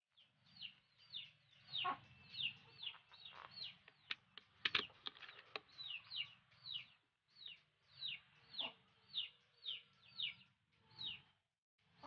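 An animal giving a long run of short, high chirps, each falling in pitch, about two a second, with a few sharp clicks in the middle of the run.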